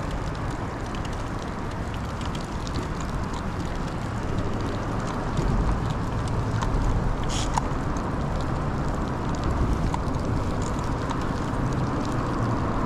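Steady rain and wind noise on the microphone, a low rumble with scattered light ticks of raindrops.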